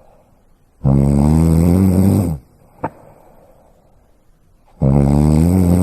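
Loud snoring: two long pitched snores about four seconds apart, with a brief click or snort between them.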